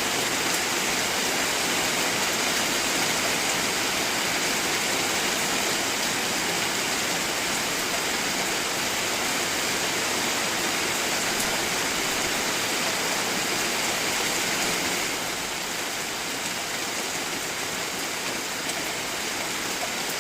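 Steady rushing water, a dense even hiss with no pauses; about three quarters of the way through it drops a little in level and changes character, as at a cut to another stretch of water.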